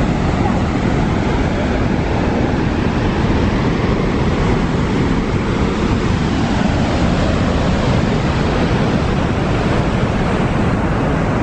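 Steady roar of Horseshoe Falls at Niagara, a dense rush of falling water, with wind rumbling on the microphone.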